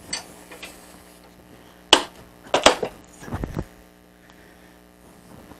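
A few sharp knocks and clanks, then a dull thump about three and a half seconds in, as a tire and wheel are turned on a steel manual tire changer and its bead-breaker arm is moved round to a new spot on the sidewall.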